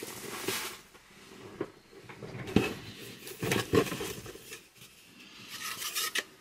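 Items from a box being handled and put down: a few light knocks and clacks spread through, with rubbing and scraping, as a cardboard tube is picked up near the end.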